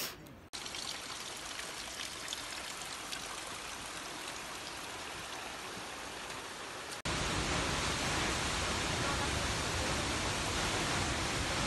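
Steady rushing noise of running water, then after an abrupt cut about seven seconds in, the louder, fuller rush of a mountain waterfall.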